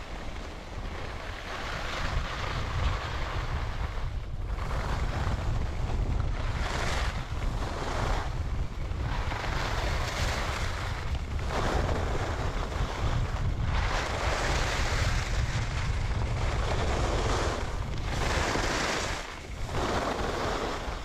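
Stöckli SX skis carving down a groomed piste, their edges scraping the snow in a hiss that swells with each turn about every one and a half to two seconds. Under it, steady low wind rumble on the action camera's microphone from the skier's speed.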